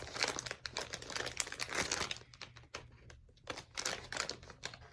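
Packaging crinkling and rustling irregularly as hands struggle to open it around a Squishmallow plush.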